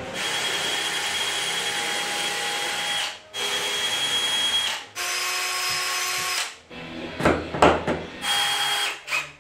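DeWalt 18V cordless drill drilling holes in wood, whining steadily in three long runs, the third lower in pitch. Near the end come a few sharp claw-hammer knocks, then a short burst of drilling.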